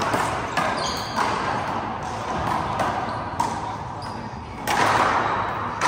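Handball rally in an echoing indoor court: a rubber handball smacks sharply off the wall and floor several times, with brief sneaker squeaks about a second in. A louder, longer echoing burst of noise comes about five seconds in.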